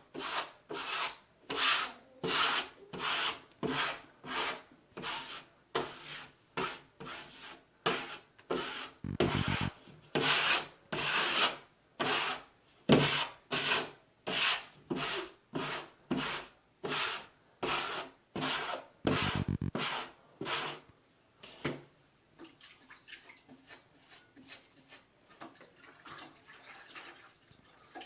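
A 6-inch steel drywall knife scraping over setting joint compound to knock the edges of a patch flat, in short repeated strokes at about one and a half a second. The scraping stops about 21 s in, and only faint handling sounds follow.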